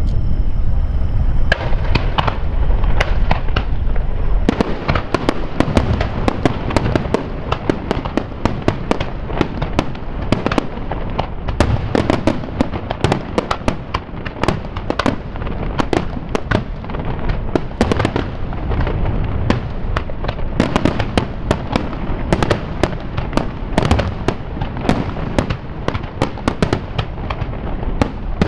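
Fireworks display: a rapid, unbroken barrage of bangs and crackles from aerial shells bursting one after another, starting about a second and a half in.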